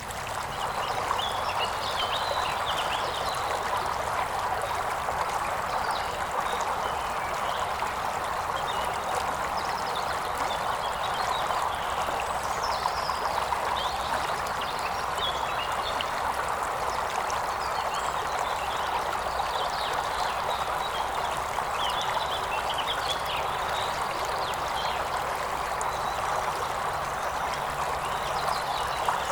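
River water flowing steadily, with scattered short high chirps over it.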